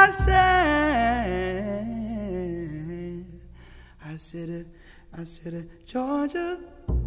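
Music: a wordless solo voice hums a slow, falling phrase with vibrato over a low held bass note, fading away after about three seconds, then a few soft, scattered notes. Near the end a plucked double bass comes in.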